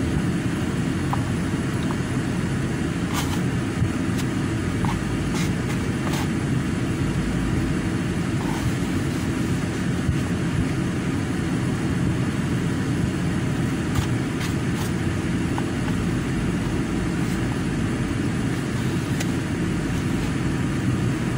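Steady low rumble of a car heard from inside the cabin, its engine running, with a few faint clicks.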